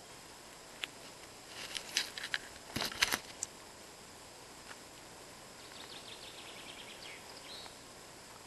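A few footsteps crunching and snapping on dry leaf litter and twigs, loudest about three seconds in. Later, a faint bird song: a quick run of high notes ending in a short falling note.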